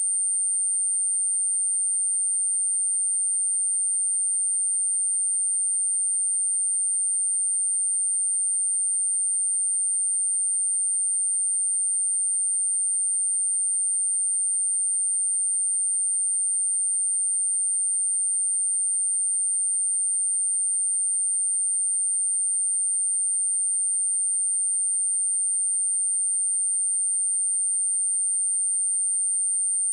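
Pure 8905 Hz sine-wave test tone, a steady high-pitched whistle held at a constant level, played for testing speakers or clearing water and dust from them.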